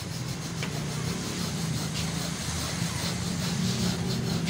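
A steady low mechanical hum, like an engine running nearby, with light rubbing and handling noises from a motorcycle seat's bare foam pad being worked by hand.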